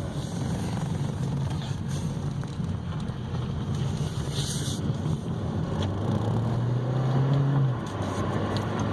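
Inside the cabin of a 2014 Chevy Cruze at about 60 mph: a steady engine and road drone with wind noise coming in through the damaged driver's door. There is a short hiss about halfway through.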